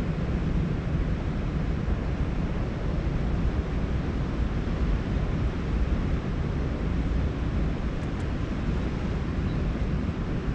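Wind buffeting a GoPro Max's microphones: a steady, unbroken low rumble.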